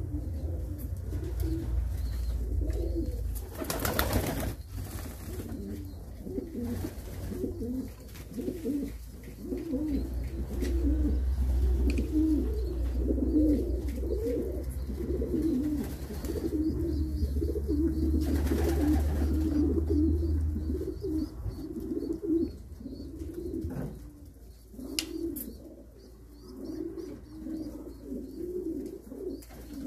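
Pigeons cooing in a loft: a continuous run of short, low, warbling coos. A low rumble runs underneath through the middle, and a short burst of noise comes about four seconds in.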